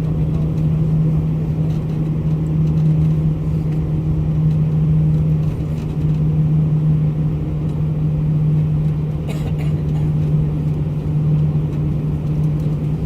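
Steady engine and airflow drone inside an airliner cabin, a deep even hum that holds the same level throughout.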